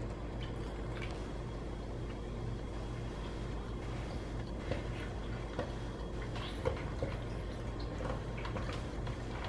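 Husky and Pit-bull mix puppy eating dry kibble from a plastic slow-feeder bowl: scattered faint crunches and clicks of kibble against the plastic, over a steady low hum.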